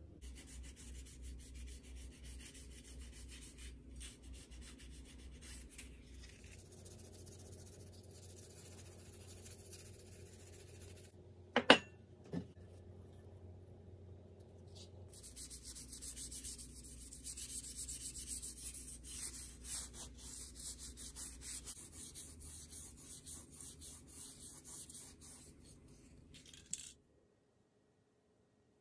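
Hand-sanding a fan housing: quick, scratchy rubbing strokes of abrasive on its painted surface, with two sharp knocks about midway.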